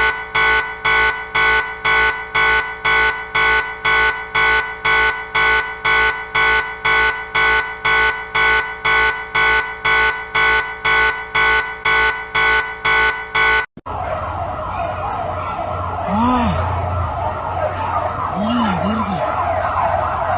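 Emergency-alert-style alarm: a harsh multi-tone beep pulsing about twice a second, which cuts off after some fourteen seconds and gives way to a noisy, wavering siren-like alarm with a few rising-and-falling wails.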